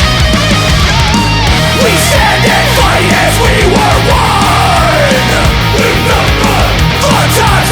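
Hardcore punk band playing at full volume: distorted guitars, bass and drums, with shouted vocals joining about two seconds in.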